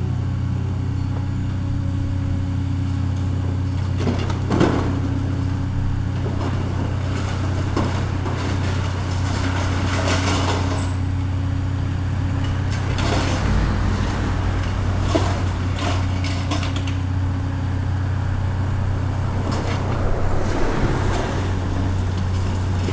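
Heavy demolition machine's diesel engine running steadily, with irregular knocks and crashes from the demolition work every few seconds.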